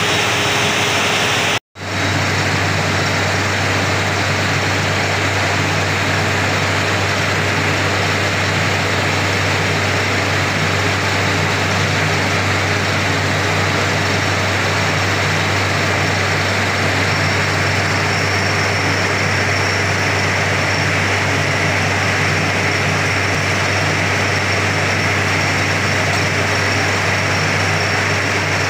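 Borewell drilling rig running steadily under load, a constant heavy engine drone with a loud mechanical hiss over it. The sound cuts out for an instant about two seconds in, then carries on unchanged.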